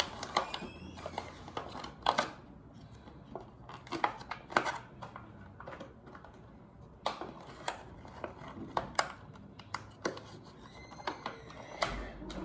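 Stiff plastic toy packaging being handled and worked open by hand: irregular sharp clicks and crinkles every second or so.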